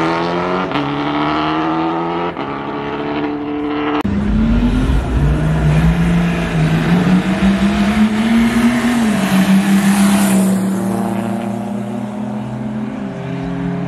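Street drag-racing engines at full throttle. First a vehicle accelerating, its pitch climbing and dropping back at each gear change. After a sudden break about four seconds in, a deeper engine note rises, falls back and then holds steady.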